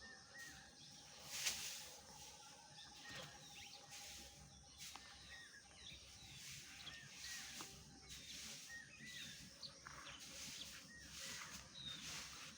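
Faint outdoor background with short bird chirps repeating every second or so, and a few light clicks.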